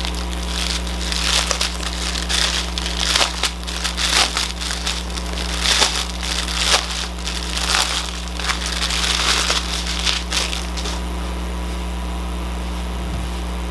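Crinkling and crackling of a plastic strip of sealed diamond-painting drill bags being handled and unfolded, in irregular bursts that stop about eleven seconds in. A steady low hum runs underneath.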